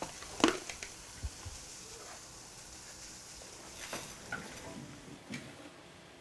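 Quiet room with a few scattered faint clicks and light knocks from objects being handled.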